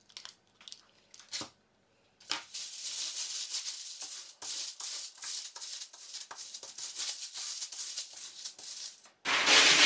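Aluminium foil crinkling and rustling as it is handled and smoothed, a dense crackle of small ticks that starts about two seconds in after a few light clicks and gets louder near the end.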